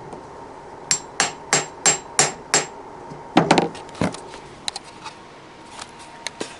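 Hammer tapping on the shift collar of a 1978 Foote 3-speed transmission: six quick metallic taps about three a second, then a couple of heavier knocks and a few light clicks. The collar won't pop out of third gear without being tapped.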